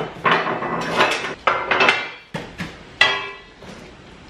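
Steel motorcycle wheel chock parts being unboxed and set down on the lift's steel deck: several clanks and knocks amid cardboard handling, with a short metallic ring about three seconds in.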